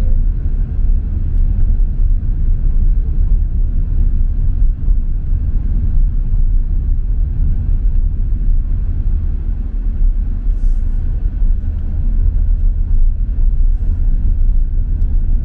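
Steady low rumble of a car in motion, heard from inside the cabin: road and engine noise.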